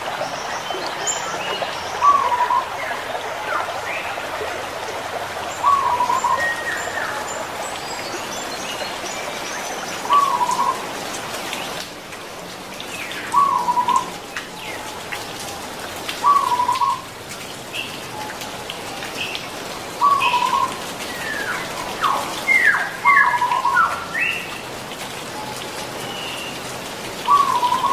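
Zebra dove (perkutut) cooing, a short call repeated about every three to four seconds, eight times over. Other small birds chirp higher in between, over a steady rain-like hiss.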